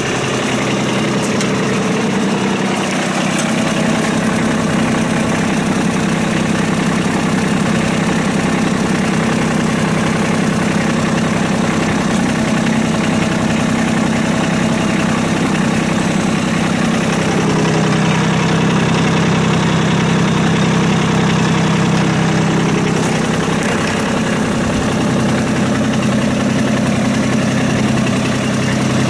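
2016 Kubota B26 compact tractor's diesel engine idling steadily.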